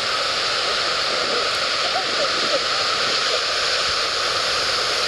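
Steady rushing of churning sea water, an even, unbroken roar with no single crash standing out.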